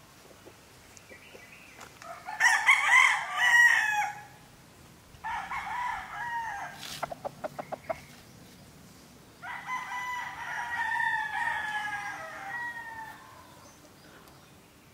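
Sweater gamefowl rooster crowing three times: a loud crow about two seconds in, a shorter crow followed by a quick run of short clipped pulses, then a longer, quieter crow from about ten seconds in.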